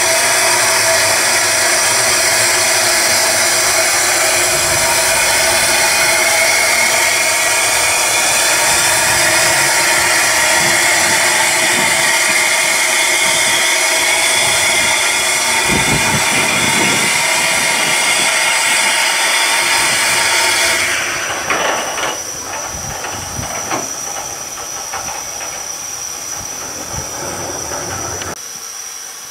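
Royal Scot class steam locomotive 46100 hissing loudly as steam blows out from low down beside its wheels and cylinders. The hiss drops sharply about 21 seconds in, leaving a quieter hiss with a thin high whistle, and it quietens again near the end.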